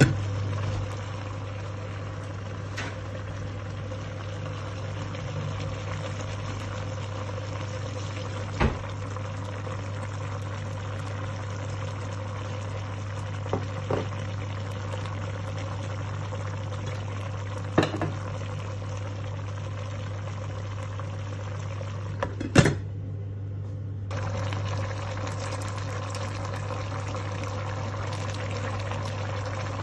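A pot of chicken simmering in its broth: a steady bubbling hiss over a constant low hum, with a few sharp clicks and knocks from the pot and lid.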